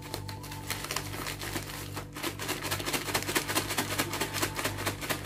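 A paper bag of french fries shaken hard to coat them with cheese seasoning powder: a fast, continuous rustling and crackling of paper, louder in the second half.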